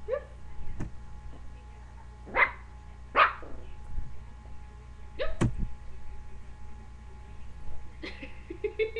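Maltese puppy giving a few short, sharp barks, about four spread over five seconds, over a steady low hum.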